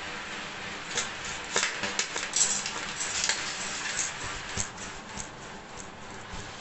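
Plastic blister packaging and card crackling, and a Scotch 5-inch blunt-tip scissors clicking against a hard stone floor as it is taken out of its pack and set down. A string of sharp clicks starts about a second in and thins out after about five seconds, over a steady hiss.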